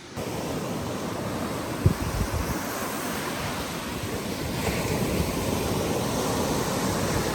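Lake Superior waves washing onto the beach, with wind buffeting the microphone and a brief thump about two seconds in.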